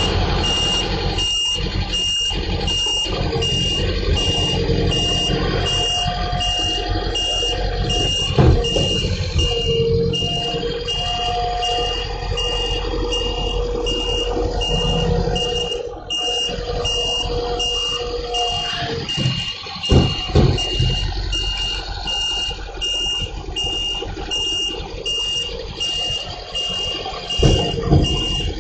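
Garbage truck running, with its warning beeper sounding steadily a little more than once a second. A held whine runs through much of the middle, and there are a few loud bangs about a third of the way in, about two-thirds in and near the end.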